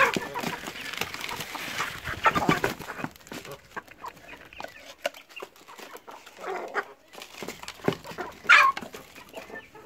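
Dry grain feed poured from a plastic bucket into a trough feeder, rattling for the first three seconds or so, while a flock of chickens clucks around it. One loud, short squawk comes near the end.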